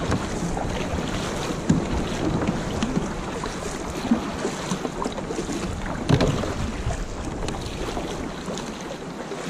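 Wind buffeting the microphone over water washing around a kayak at sea, with a few short, sharper sounds standing out about two, four and six seconds in.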